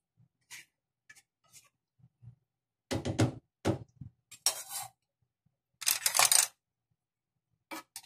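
Spatula knocking and scraping in a frying pan while stirring: scattered light clicks, with louder clatter and scraping about three seconds in and again about six seconds in.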